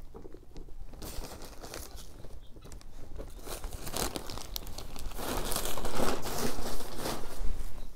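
Crinkling and rustling of packaging being handled, irregular and scratchy, loudest in the second half.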